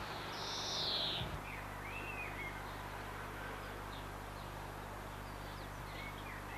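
Birds calling outdoors, a few short chirps and whistled glides. One harsher call comes about a second in and scattered faint calls follow near the end, all over a steady low hum and hiss.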